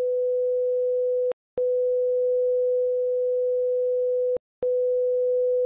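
Test tone of a TV colour-bars screen: a steady, mid-pitched beep, cut off twice for a moment, with a click at each break.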